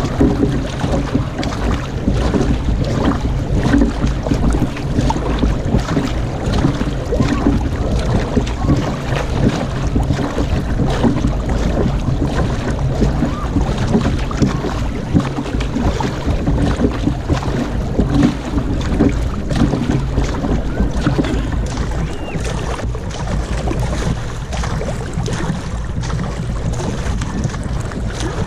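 Sprint kayak being paddled steadily. The paddle blades splash in and out of the water at each stroke over the rush of water along the hull, with wind buffeting the microphone.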